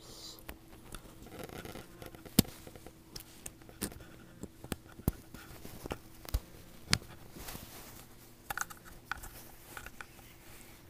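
Hands handling an airsoft battery and its wire connectors while plugging them into the gun's wiring: scattered light plastic clicks and scrapes, with one sharper click about two and a half seconds in.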